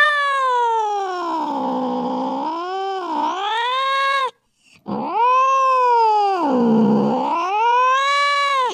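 Two long, drawn-out wailing calls from an animal, each about four seconds, with a short break between them. Each starts high, sinks lower in the middle and rises again at the end.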